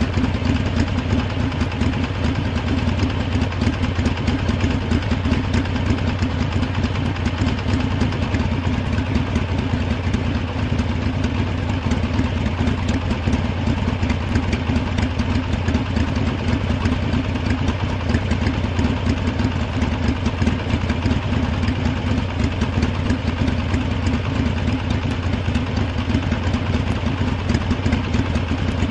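Harley-Davidson motorcycle's V-twin engine idling steadily, with a dense, even firing pulse.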